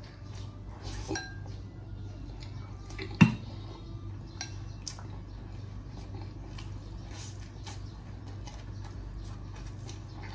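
Tableware clinking: eating utensils tapping against dishes in scattered light clicks, with one louder knock about three seconds in, over a low steady hum.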